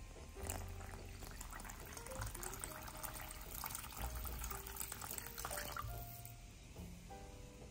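Water poured in a thin stream into a glass mixing bowl, splashing into a pool of liquid in a well of flour. It starts about half a second in and stops about 6 s in.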